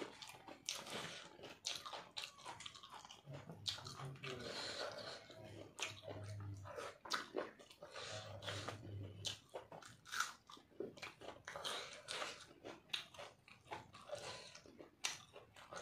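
Close-up eating sounds: a person chewing a mouthful of chicken curry and rice, with many irregular wet mouth smacks and clicks.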